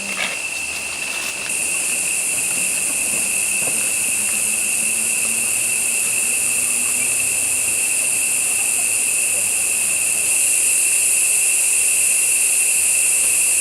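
Rainforest ambience of a dense insect chorus: a steady, high-pitched buzzing drone that steps up in loudness about a second and a half in and again near ten seconds.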